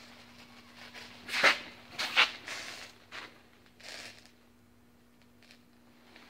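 Scuffing footsteps and rustling on a concrete floor: several irregular noises in the first four seconds, the loudest about a second and a half and two seconds in, over a faint steady hum.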